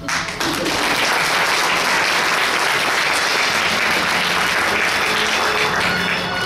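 Audience applauding, starting suddenly and holding steady for about six seconds before music comes back in.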